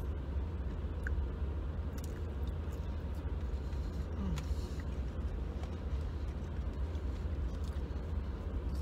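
Steady low rumble of a car ferry underway, heard from inside a car parked on its deck, with a few faint clicks from handling food.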